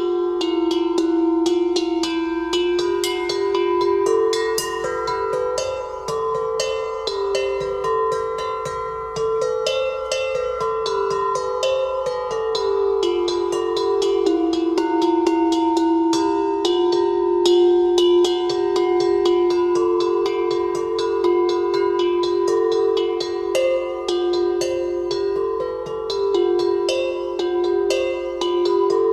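Cowbells clanking continuously and irregularly, the ringing tones of several bells at different pitches overlapping.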